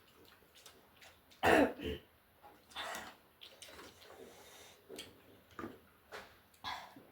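Someone eating noodle soup at close range: a loud throat-clearing sound about a second and a half in, followed by several short, quieter mouth and eating noises.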